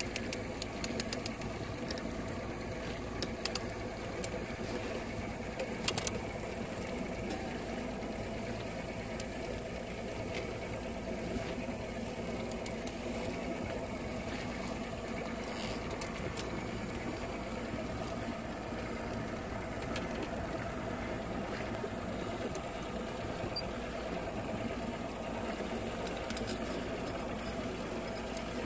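Fishing boat's motor running steadily under way, with a constant hum and water and wind noise. A few sharp clicks come in the first second and again about six seconds in.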